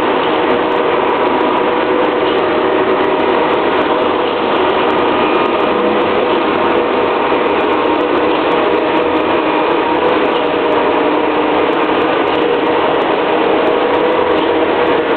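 Diesel engines of concrete pump and mixer trucks running steadily, a continuous loud machinery drone with a steady hum.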